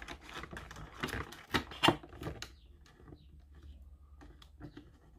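Light clicks and taps of a small circuit board and the radio's plastic case being handled, with a few sharper clicks in the first two seconds, then only faint scattered ticks.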